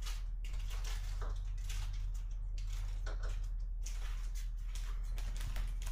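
Light rustling and small knocks of items being picked up and handled at a workbench, over a steady low hum.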